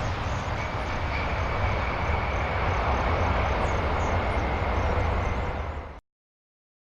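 Airplane jet engines running: a steady deep rumble with a faint high whine on top. The sound fades briefly and then cuts off abruptly about six seconds in.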